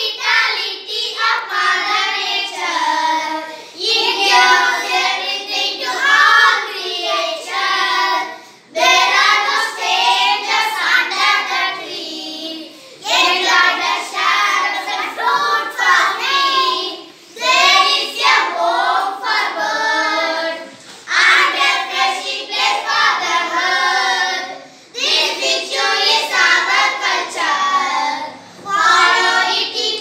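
A small group of children singing an English poem together in unison, in phrases of a few seconds each with short breaks between them.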